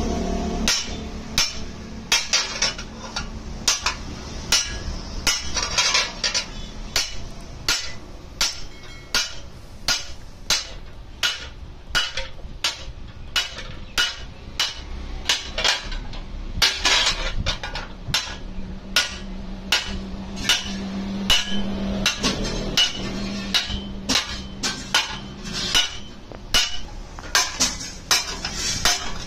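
Hand hammer striking a round steel plate onto a steel kassi (spade) blade held over an anvil stake, riveting the plate to the blade: a steady run of sharp metal-on-metal blows, about one to two a second.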